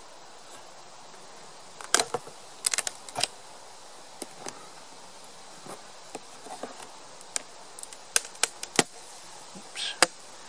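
Honey bees buzzing steadily around an opened hive, with a scatter of loud, sharp clicks or knocks: a cluster about two to three seconds in, more around eight to nine seconds, and the loudest near the end.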